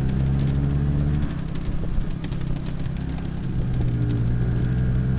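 Vehicle engine running steadily, heard from inside the cab; it eases off about a second in and picks up again near the end.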